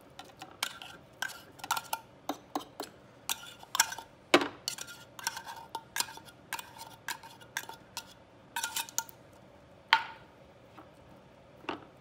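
A tin can of tuna being worked empty with a metal utensil into a plastic food processor bowl: a run of irregular light clinks, taps and scrapes, some ringing briefly, thinning out near the end.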